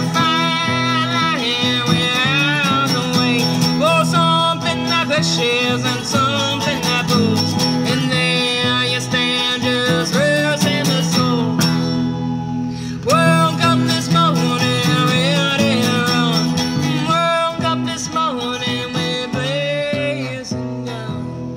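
Background music: a gliding melody line over a steady beat. It thins out briefly a little past halfway and begins to fade out near the end.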